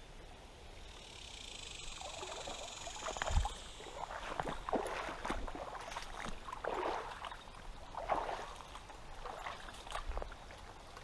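Wading steps through shallow river water: irregular sloshing splashes about once a second, with sharp knocks mixed in and one heavy thump about three seconds in.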